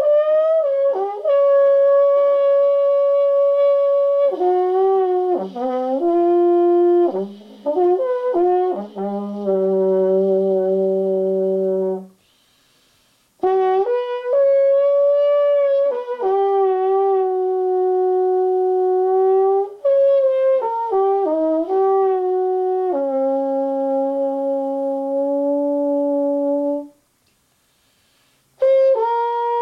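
Soprano trombone playing an unaccompanied improvised solo: long held notes, some with vibrato, broken by quick runs of short notes. It stops briefly twice.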